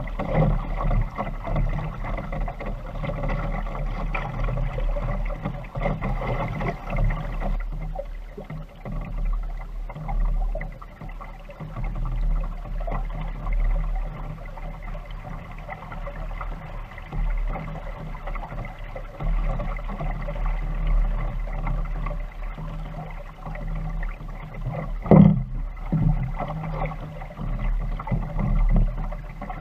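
Water rushing and slapping along the hull of a small wooden sailing dinghy under way in a chop, over a steady low rumble. A single sharp knock about 25 seconds in is the loudest sound.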